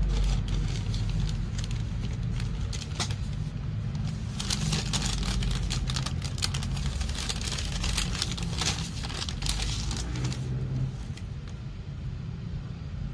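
Kraft-paper wrapping and a paper bag rustling and crinkling as they are handled, densest through the middle few seconds, over a steady low rumble.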